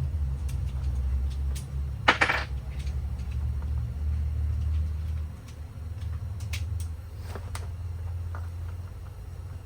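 Metal clinks and knocks from hand tools and parts during engine disassembly, with one louder scraping clank about two seconds in, over a steady low hum.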